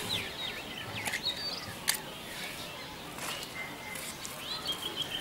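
Small birds chirping in short repeated calls, with a couple of sharp clicks or scratches about one and two seconds in.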